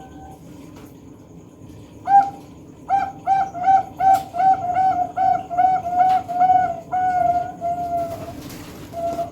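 A bird calling with clear, pitched notes: one note about two seconds in, then a run of about a dozen similar notes at about three a second, the last few drawn out and slightly lower before they stop.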